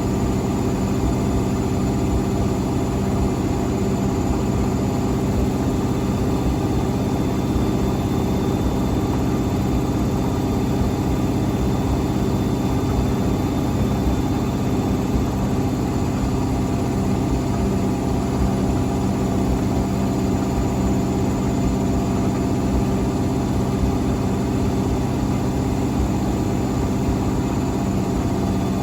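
Hotpoint Extra WMXTF942 washing machine spinning at speed on a rinse spin: a steady motor hum over a low drum rumble, with no change in pitch or level.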